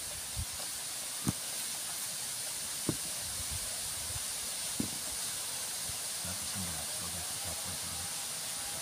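A steady high hiss with four short knocks spread through it, from a knife cutting and tapping into ripe mangoes.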